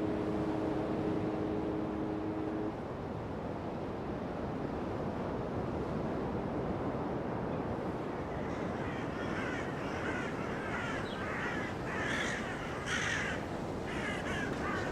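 Birds calling with harsh, repeated caws that begin about halfway through and grow thicker near the end, over a steady rushing background. A low steady hum stops near the start.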